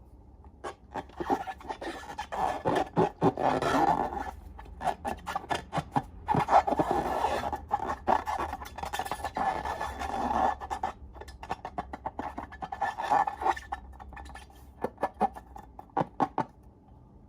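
Slime being squished and worked by hand, with dense, irregular sticky clicks and crackles that stop shortly before the end.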